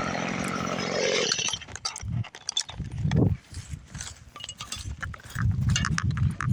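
A chainsaw running, cutting off about a second in; after that, irregular low rumbling bursts and scattered clicks.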